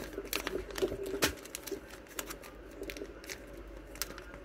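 Clear plastic packaging of sticker and memo packs crinkling and clicking as fingers handle and swap them: a quick run of sharp clicks in the first second or so, then scattered taps.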